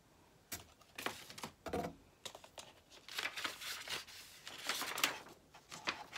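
Paper and sticker sheets being handled, rustling and crinkling in short, irregular bursts that start about half a second in.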